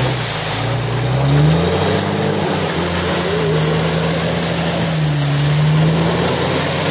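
Off-road 4x4's engine revving hard while its chained tyres spin in deep snow, the vehicle stuck and digging in. The revs climb over the first two seconds and then hold high with small dips.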